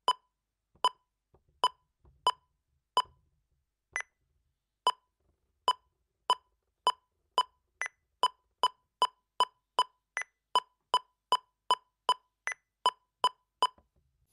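NUX NEK-100 digital keyboard's built-in metronome clicking, one short electronic tick per beat. The ticks start slow and unevenly spaced, about 75 a minute, then speed up to about 150 a minute as the tempo is raised with the tap tempo.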